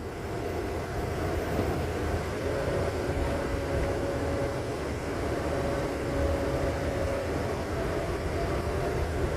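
Steady running noise of a moving vehicle: a continuous low rumble with a faint steady whine over it.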